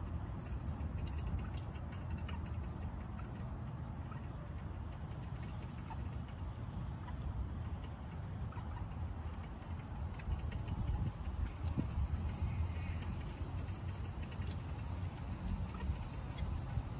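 Outdoor background noise: a steady low rumble with scattered light clicks and ticks, thickest in the first few seconds.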